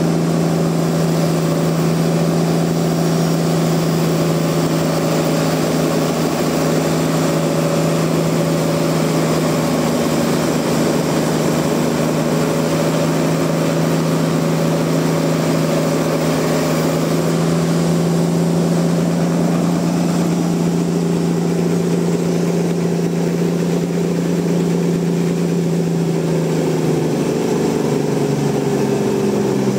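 Large sawmill machinery running with a steady, loud mechanical hum over a noisy rush; the hum's pitch falls slightly near the end.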